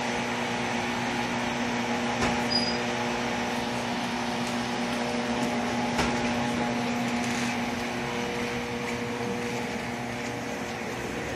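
Indoor hallway ambience: a steady electrical hum under a background hiss, with a faint knock about two seconds in and a sharper click about six seconds in.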